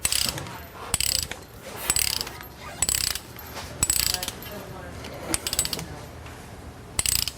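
Hand ratchet clicking in short strokes, roughly one burst a second, as a bolt is tightened. There is a quieter pause in the middle before a last burst near the end.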